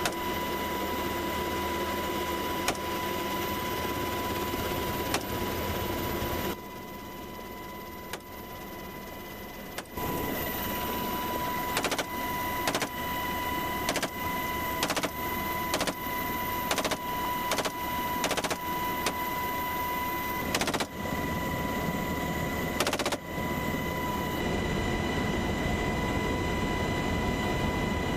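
Helicopter cabin noise with a steady high whine, and from about ten seconds in a string of single rifle shots fired out of the open door, roughly one a second.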